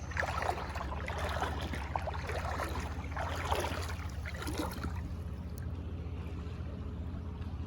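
Creek water running, with a steady low rumble under it and faint scattered sounds in the first half that die away.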